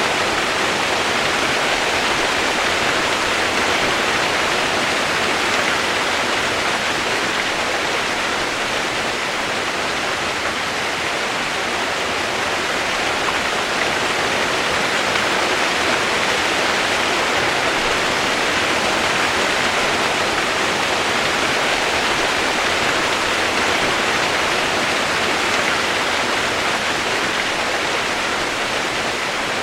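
Steady rain, a constant even hiss without separate drops or thunder.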